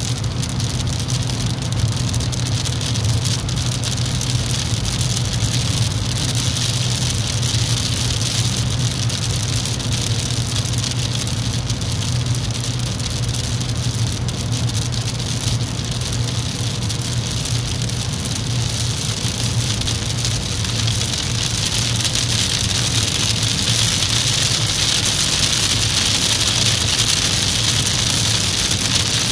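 Car cabin noise at motorway speed: a steady low drone from engine and tyres. Rain patters on the windscreen, growing heavier and louder over the last few seconds.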